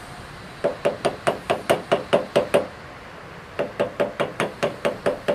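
Rapid, even hammer blows on a thin metal rod lying in the groove of a grooved steel block, at about five blows a second. A run of about ten blows, a pause of about a second, then a second run.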